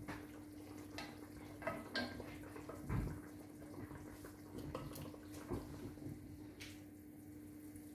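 Metal tongs and a wooden spoon clinking and scraping against a casserole pot as a whole browned chicken is lifted out, with a few light knocks and one duller thump about three seconds in. A faint steady hum runs underneath.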